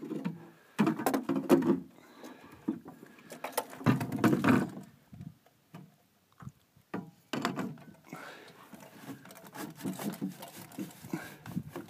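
Light knocks, taps and rubbing from handling the mast's two tube sections, fitting the top section onto the base. The knocks are irregular, with a few louder scuffs about a second in, around four seconds in and past seven seconds.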